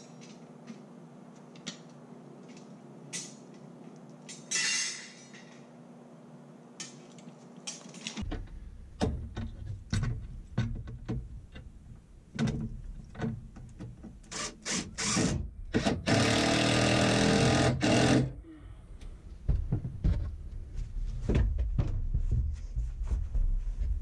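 Scattered knocks and clicks of metal hardware being handled. A little past halfway a power tool runs steadily for about two seconds, and that is the loudest sound.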